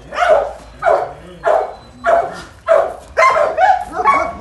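Shelter dogs barking repeatedly in their kennels, about two barks a second, coming quicker in the second half.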